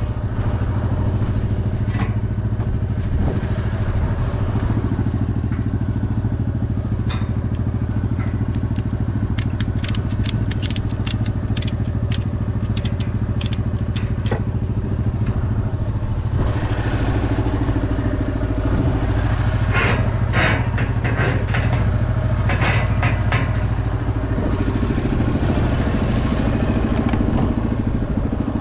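Quad ATV engine idling steadily. Over it come two runs of quick sharp clicks, about a third of the way in and again past two-thirds, from a ratchet strap being cranked tight on the truck's loading ramps.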